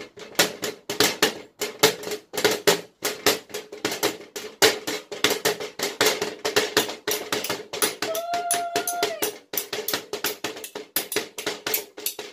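Metal spoons rapidly tapping and scraping on a metal baking tray: a busy, uneven run of clinks, several a second.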